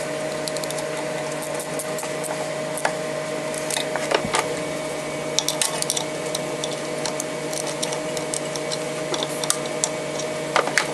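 A wrench working the starter-generator mounting bolts on a Club Car DS gas golf cart as they are tightened down: scattered sharp metal clicks and taps, bunched in a few quick clusters, over a steady low hum.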